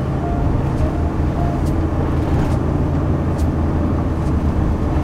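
Motorhome driving, heard from inside the cab: a steady low engine and road rumble with tyre noise.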